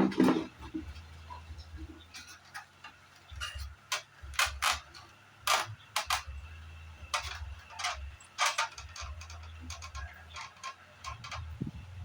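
Scattered, irregular clicks and taps, some briefly ringing, over a low hum that cuts in and out. The clicks come from tools and parts being handled during repair work on an air conditioner.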